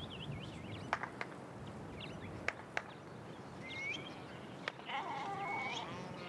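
Birds chirping over a steady outdoor background, with several sharp clicks and, about five seconds in, a longer wavering animal call.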